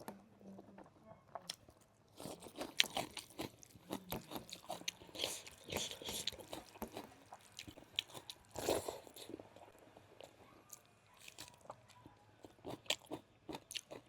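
Close-up chewing and biting of smoked pork, with irregular wet crunches and smacking.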